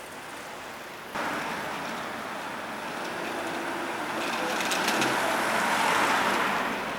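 A vehicle passing over the level crossing: a rushing noise that comes in suddenly about a second in, grows to its loudest around five to six seconds with some clattering at the peak, then starts to fade.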